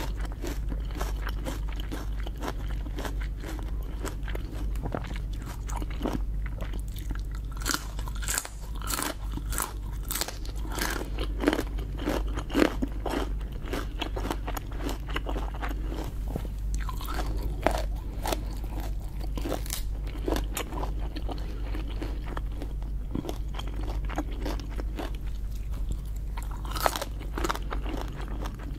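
Close-up eating of lobster: biting and chewing, with frequent sharp crunches and clicks throughout.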